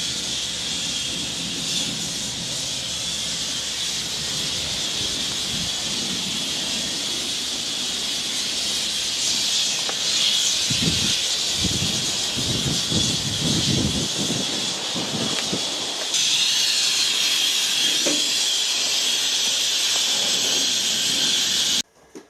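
Steady hiss of escaping steam, louder from about sixteen seconds in, with a few low rumbles between about ten and fourteen seconds; it cuts off suddenly near the end.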